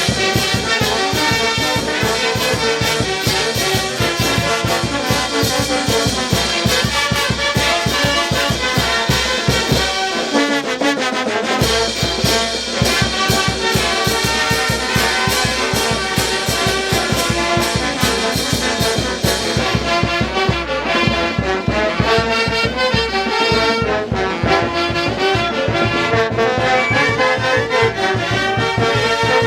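Brass band playing live: trumpets and trombones over a steady, quick drum beat. The bass drops out briefly about ten seconds in, then comes back.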